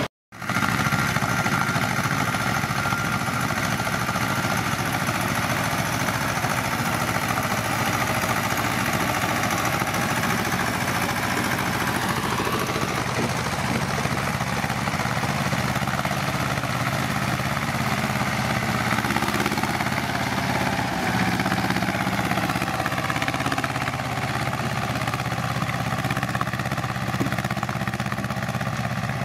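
Ursus C-330M and Vladimirets T-25 tractors' two-cylinder diesel engines running steadily under load while pulling ploughs. The sound drops out for a moment just after the start.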